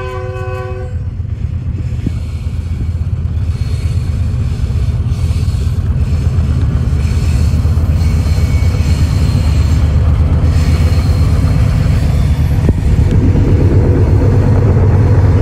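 GE U20C (GEU-20) diesel-electric locomotive's engine working hard under power, a loud steady low rumble that builds gradually and gets louder about 13 seconds in. The tail of a horn blast cuts off just under a second in.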